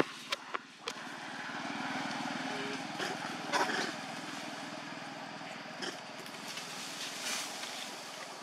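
A motor engine running steadily in the background, with three sharp clicks in the first second.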